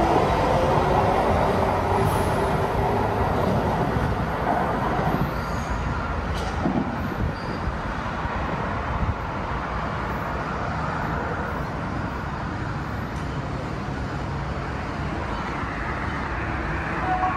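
MARTA rapid-transit train running, with a whining tone that fades in the first second or two. The rumble eases over the first several seconds and then settles to a steady noise.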